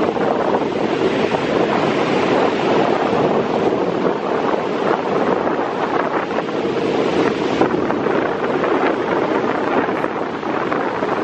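Steady wind buffeting the microphone, over the wash of rough sea surf breaking on the beach.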